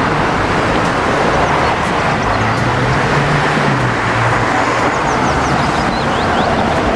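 Mini Cooper hatchback driving on a highway: steady tyre and road noise, with a low hum that rises and falls back about halfway through.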